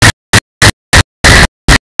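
Harsh, clipped noise chopped into short bursts about three times a second, with dead silence between them: a glitching audio track broken up by dropouts.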